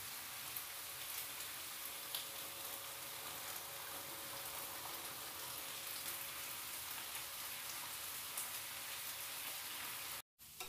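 Chayote and sardines sizzling faintly in a frying pan as they finish cooking: a steady quiet hiss with a few small pops. The hiss cuts out briefly near the end.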